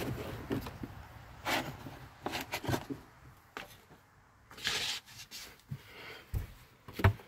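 Irregular rubbing and rustling with scattered light knocks from someone moving about inside a van and handling things, ending in a sharper knock with a dull thud a little before the end.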